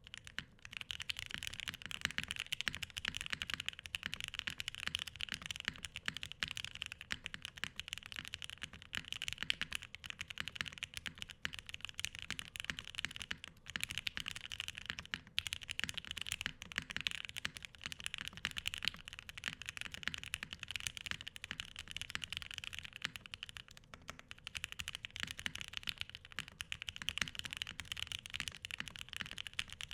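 Continuous fast typing on a custom 60% mechanical keyboard (a Ciel, Bakeneko-style, aluminium plate, Gateron Ink linear switches, GMK keycaps): a steady stream of crisp keystroke clacks, with a couple of brief pauses.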